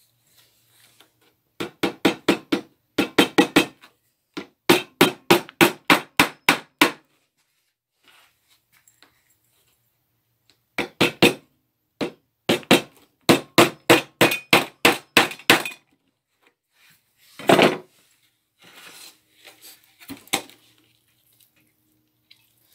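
Hammer driving felt nails through roofing felt into a wooden birdhouse roof. The strikes come in several quick runs of about four a second, with short pauses between them.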